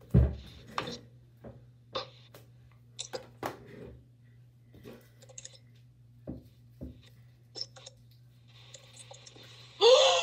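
Small objects being handled and set down on a hard surface: scattered clicks and taps, a sharp knock just after the start and a louder scraping burst near the end, over a steady low hum.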